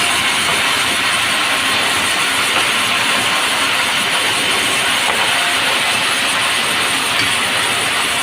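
Semi-automatic sawmill's saw running at a steady level, a loud, unbroken noise with no breaks or changes.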